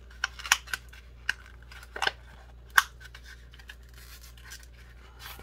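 Hot Wheels blister pack of stiff plastic on card being pried and pulled open by hand. Scattered sharp crackles and snaps, the loudest a little under three seconds in.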